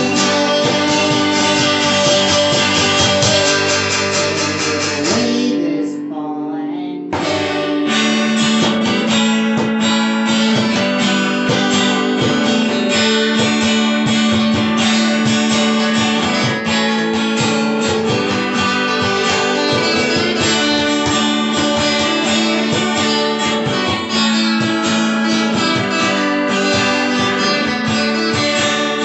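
Live acoustic jam: two acoustic guitars strumming along with hand percussion on a box drum. The playing thins to a brief break about six seconds in, then picks up again at full volume.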